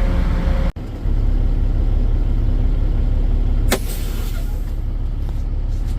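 Semi truck's diesel engine running steadily, heard from inside the cab, with a single sharp click a little past halfway.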